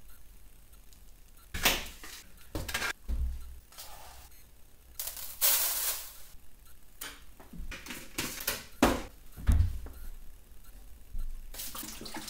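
Plastic jars, lids and containers being handled on a workbench: a series of sharp clicks and knocks, with a rush of noise lasting about a second and a half about five seconds in.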